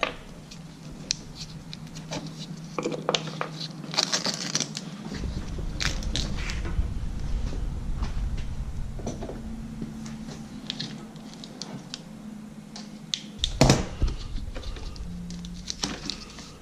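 Scattered clicks, taps and scrapes of hands and tools working on a RedMax backpack blower's parts while the throttle cable is removed, with one louder knock about fourteen seconds in.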